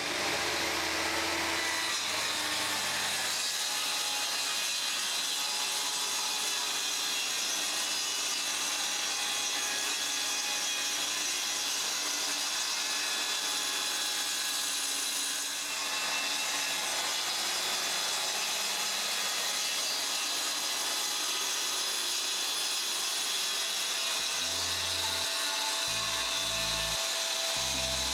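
Makita 5704R 190 mm circular saw running through a rip cut in wood, one steady, continuous cutting noise with a brief dip about halfway through.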